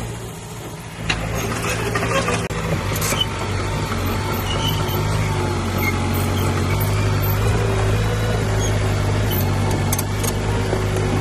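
Heavy diesel engine of earthmoving machinery running steadily, with a sharp metallic knock about a second in, after which it runs louder; a few lighter clanks follow.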